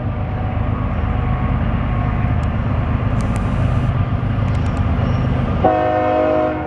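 A CSX ES44AH diesel locomotive and its freight train run past with a steady low rumble. About five and a half seconds in, the locomotive's air horn sounds one chord blast of about a second.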